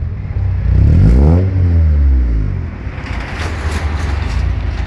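GSR engine blipped once, its pitch rising and falling back, then settling to idle with a clattering noise that the owner is showing as an abnormal engine noise.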